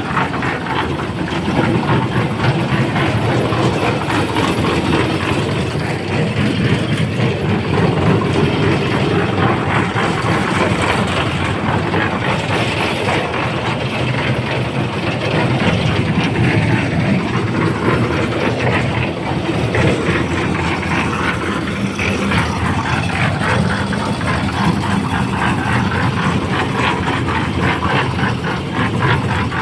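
Engine-driven machinery running steadily, with a continuous mechanical rattle.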